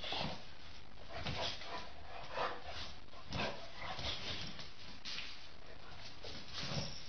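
Animal sounds in short bursts, about one a second, over a steady background hiss.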